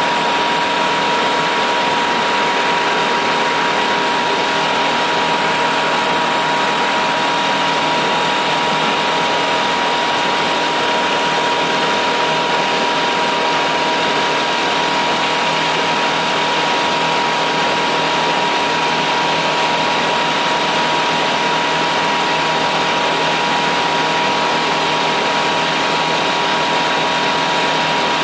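A small boat's outboard motor running steadily at cruising speed, with a steady high whine, over the constant rush of the hull moving through the water.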